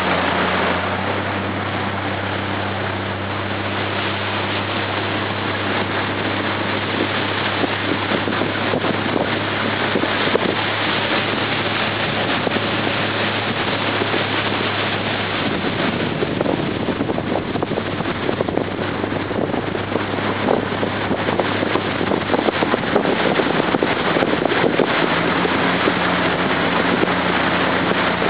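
Small motorboat's engine running at speed with a steady drone, under heavy wind on the microphone and the rush of water from the wake. The engine drone sinks into the wind and water noise in the middle stretch and comes through clearly again near the end.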